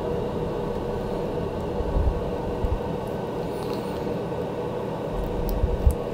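Steady low fan hum from a solder fume extractor, with a few soft knocks and small clicks as tweezers work a desoldered mouse switch off the circuit board.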